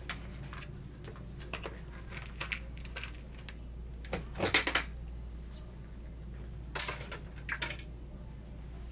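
Hard chunks of troche base clicking and clattering against plastic as they are picked out of a tub by hand and dropped into a plastic weigh boat: scattered clicks, loudest in a quick cluster about halfway through and again a little later, over a steady low hum.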